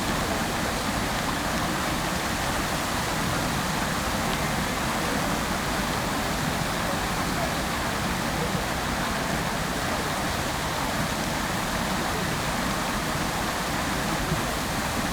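Fountain jets of water falling and splashing into the basin: a steady, even rush of water that does not change.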